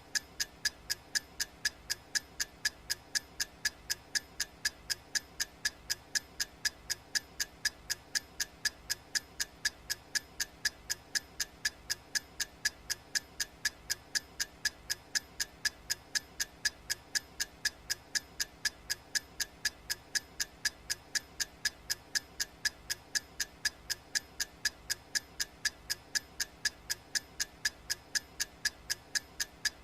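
Steady clock ticking, sharp regular ticks at about two a second.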